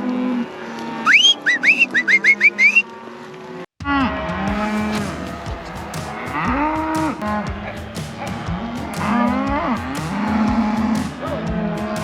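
A herd of cattle bawling, many moos overlapping and rising and falling in pitch. About a second in, before the mooing takes over, comes a quick run of about six short rising whistles over a low steady hum, and the sound cuts out briefly at about four seconds.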